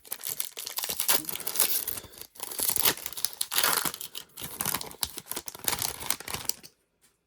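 Japanese Pokémon card booster pack being torn open by hand, its foil wrapper crinkling and tearing in a dense run of crackles that stops shortly before the end.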